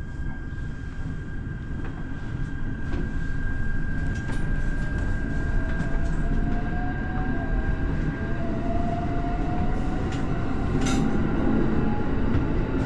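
Electric commuter train pulling away: a low running rumble that grows louder, with the traction motor's whine rising slowly in pitch as it gathers speed.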